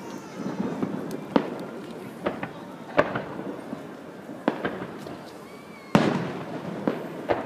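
Aerial fireworks shells bursting: a string of sharp bangs at irregular intervals, the loudest about six seconds in, trailing off in a rumble.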